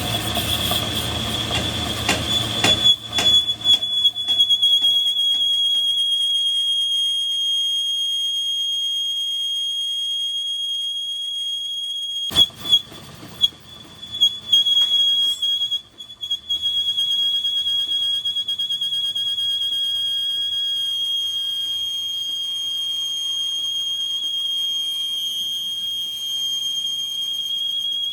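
A workshop machine giving a steady high-pitched whine, broken by a few sharp knocks around three seconds in and again around twelve to fifteen seconds in.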